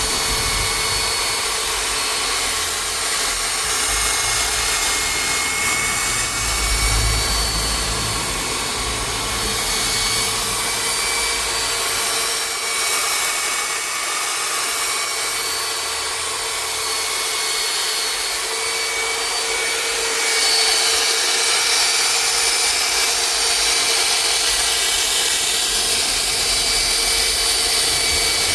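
Handheld electric power tool, used for sanding and polishing, running steadily with a high whine whose pitch shifts slightly now and then.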